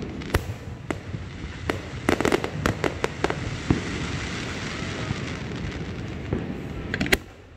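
Aerial fireworks bursting: a run of sharp bangs and crackles, thickest about two to three seconds in, with a steady noise between them and one last loud bang just before the end.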